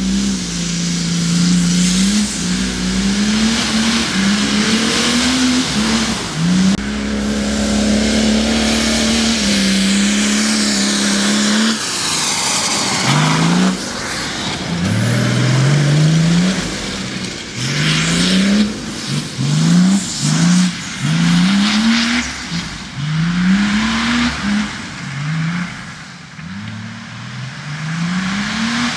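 Mercedes-Benz OM603 straight-six diesel engine of an off-road buggy under hard throttle. It runs at high revs, its pitch climbing and falling back a few times, then for the second half it is revved up sharply again and again, about once a second.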